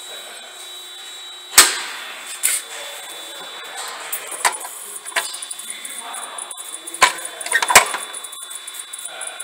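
Sharp clicks and knocks from a hand working the front-panel switch and knob of a Miller XMT 350 CC/CV welder, several in all, the loudest about a second and a half in and again near the end, over a faint steady high whine.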